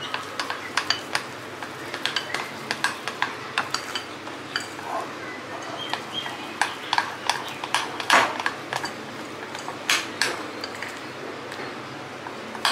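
Metal spoon clinking and scraping against a ceramic bowl while stirring thick besan (gram-flour) batter, in irregular clicks several times a second.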